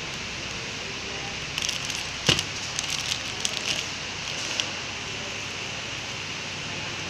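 Clear plastic packaging film crinkling and crackling in the hand as flow-wrapped toy visors are picked up and handled, with a sharp snap about two seconds in. A steady hiss runs underneath, and the crinkling dies away after about five seconds.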